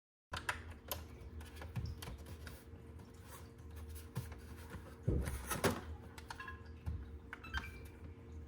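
Scattered light clicks and knocks of small hard objects being handled, over a steady low electrical hum, beginning abruptly after a short silence. A louder cluster of knocks comes a little past the middle.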